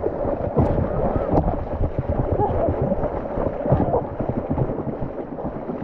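Shallow seawater sloshing and splashing around a person's legs as they wade through small waves, with wind buffeting the microphone.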